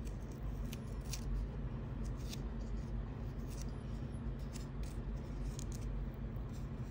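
Faint handling noise of a velcro strap being threaded through the slot of a small metal finger slide: scattered light clicks and rubbing, over a steady low hum.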